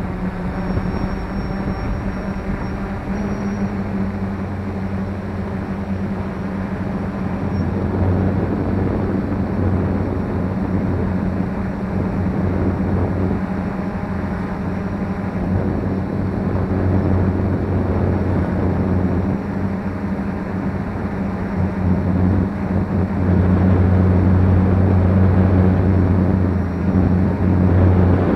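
F450 quadcopter's motors and propellers running with a steady drone, getting somewhat louder near the end.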